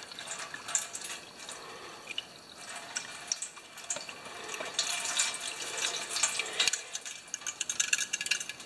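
Clean gasoline poured from a plastic cup over a Tecumseh carburetor part, splashing and trickling into a shallow metal drain pan with many small drips, to flush dirt out of the carburetor.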